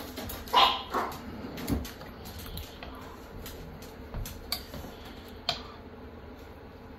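Metal spoon stirring thick beef stew in a slow cooker's crock, giving scattered light clicks and taps against the pot. A brief louder voice-like sound comes about half a second in.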